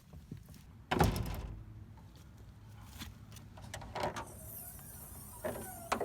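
A single solid thump from the VW Golf's bodywork about a second in, of the kind a car door or hood makes closing or being released, followed by a few lighter clicks and knocks.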